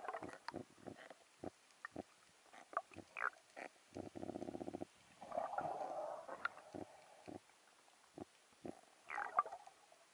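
Underwater grunting and drumming from a speared grey triggerfish: scattered sharp clicks and knocks, short grunts, and a fast rattle lasting under a second about four seconds in.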